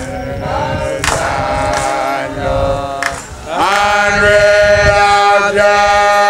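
A group of Rastafarian men chanting a hymn in unison. About three and a half seconds in they rise into a long, loud held note.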